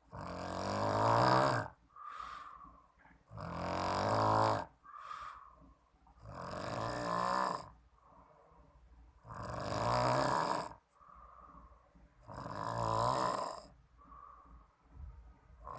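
A person snoring loudly in a steady breathing rhythm: a long rattling snore about every three seconds, with a softer, whistly breath between each.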